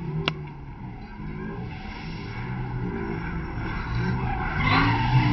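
Road traffic passing close by, with one vehicle growing louder and going past near the end, its engine pitch rising then falling. A single sharp click sounds about a quarter second in.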